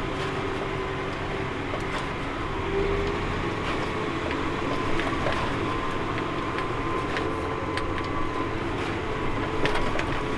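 Tractor engine running steadily while under way through deep snow, heard from inside the cab, with a few sharp clicks in the second half.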